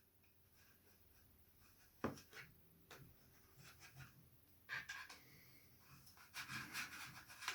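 Faint handling of a plastic FireAngel ST-622 smoke alarm as it is pushed and turned against its locking mounting base. There is one sharp click about two seconds in, then soft rubbing and scraping of plastic near the middle and again towards the end.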